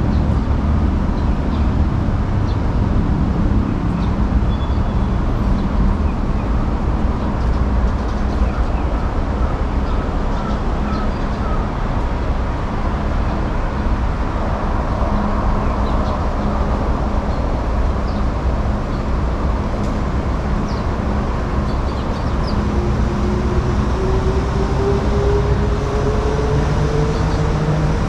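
Steady rumble of passing road traffic at a busy urban street, with a rising whine near the end.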